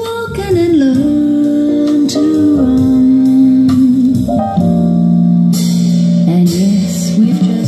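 Recorded music played through a small DIY TDA7297 amplifier and Mission MX-S loudspeakers: an instrumental passage with long held notes, some sliding in pitch, and no singing.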